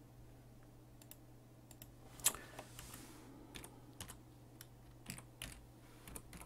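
Computer keyboard keys tapped in short, irregular runs as digits are typed, with a louder click a little over two seconds in. A faint steady low hum lies underneath.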